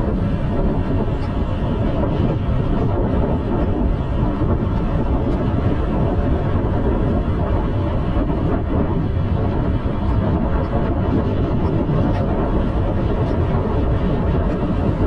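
Steady wind rumble on the microphone of a moving bike, with road and traffic noise underneath.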